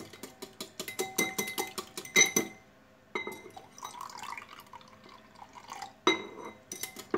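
Wire whisk clinking rapidly against a glass bowl as egg, sugar and salt are beaten. After a short pause, milk is poured from a glass into the bowl for about three seconds, and a few more glassy clinks come near the end.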